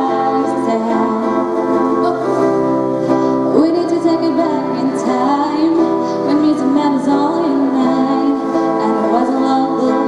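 Live acoustic pop performance: a woman singing a melody into a microphone, accompanied by two acoustic guitars.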